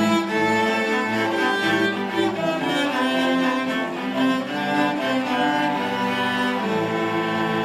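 A school string orchestra playing: violins, cellos and double bass bowing sustained melody and harmony lines together.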